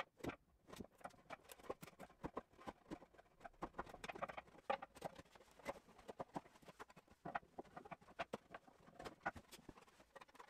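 Hand chisel paring track-saw marks off the edge of an engineered oak worktop: a run of faint, irregular short scrapes and ticks.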